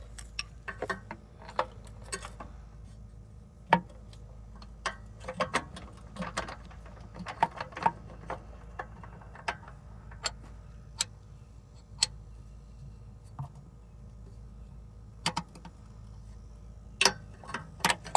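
Hand ratchet wrench clicking in short, irregular spells, with sharp metal clicks and clinks, as a starter mounting bolt is run in under the car.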